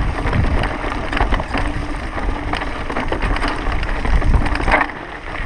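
Mountain bike clattering and rattling over loose rock on a descending singletrack, with many sharp knocks, and wind rumbling on the microphone.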